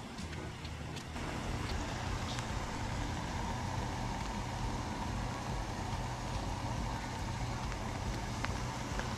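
Lit gas stove burner running: a steady rumbling hiss with a faint hum, a little louder from about a second in.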